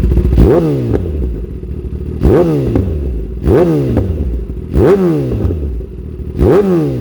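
Kawasaki ZX10R inline-four engine through an Austin Racing GP1R aftermarket exhaust, revved in five quick throttle blips, each rising sharply in pitch and falling back to idle. Crazy loud.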